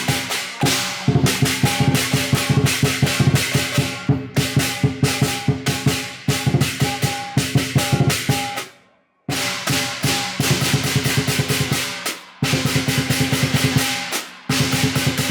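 Lion dance percussion: a large drum beating fast, driving rhythms with clashing cymbals. It stops abruptly about nine seconds in and starts again about half a second later.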